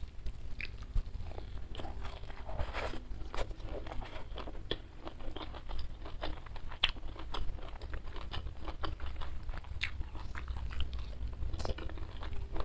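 A person chewing food close to the microphone, with many short, crisp clicks and crunches of the bites.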